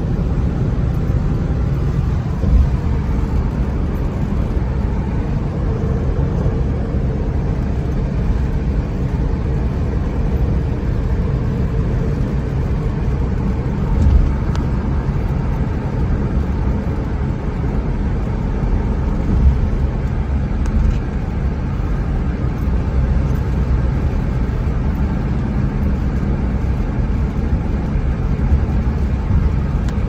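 Car driving at road speed, heard from inside the cabin: a steady low rumble of tyres and engine, with a few brief low thumps.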